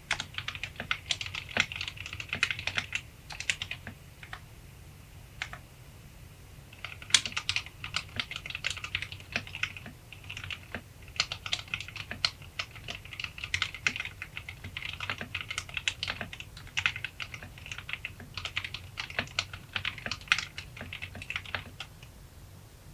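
Fast typing on a Drop Alt 65% mechanical keyboard with Kailh Speed Silver linear switches: a dense run of key clacks that thins to a few scattered keystrokes for a few seconds, picks up again and stops just before the end.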